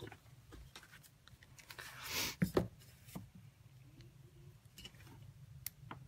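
Light clicks and taps from handling a clear Stamp-A-Majig stamp-positioning tool and cardstock on a craft table, with a brief sliding rustle about two seconds in, over a faint low hum.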